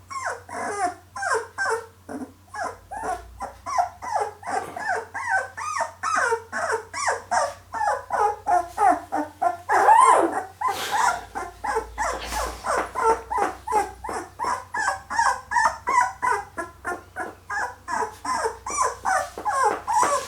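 A litter of 13-day-old Labrador Retriever puppies whimpering and squeaking in short, rapid, overlapping cries, two or three a second, each rising and falling in pitch.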